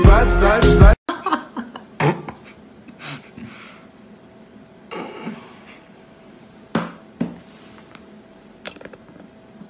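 A burst of music cuts off abruptly about a second in. After it comes quiet room sound from a phone video, with a few soft knocks and a short rustle, and a faint steady hum in the second half.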